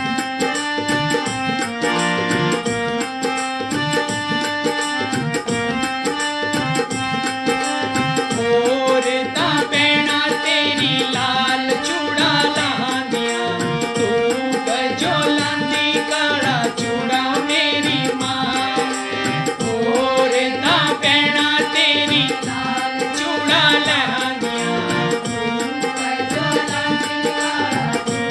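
Devotional bhajan music: a harmonium plays a melody in held notes over a steady drum beat. A man's voice sings over it from about nine seconds in, in wavering, ornamented phrases.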